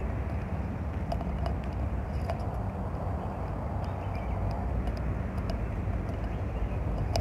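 Steady low rumble of city traffic and outdoor street ambience, with a few faint clicks scattered through.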